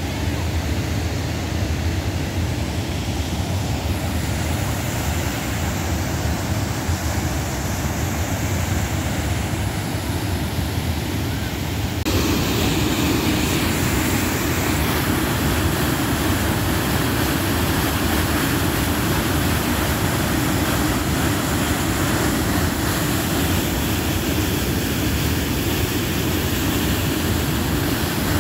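Mountain stream rushing over rocks: a steady noise of running water. About twelve seconds in it switches to a louder, fuller rush of whitewater cascading through a narrow rock channel.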